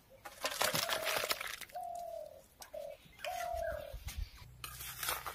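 Metal spatula scraping thick curry out of a metal wok into a steel bowl, loudest in the first second or so, with a dove cooing four short notes over it.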